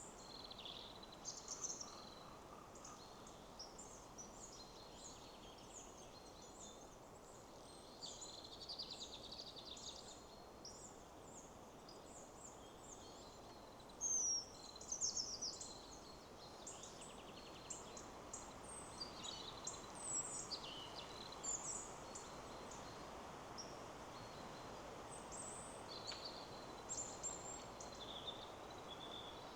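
Several songbirds chirping and trilling in quick, overlapping calls, the loudest about halfway through, over a steady hiss of wind in the trees.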